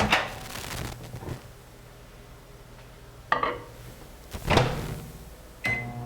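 Microwave oven being loaded and shut, with three knocks as the dish goes in and the door closes, the loudest about four and a half seconds in. Near the end a short beep, and the oven starts running with a steady hum.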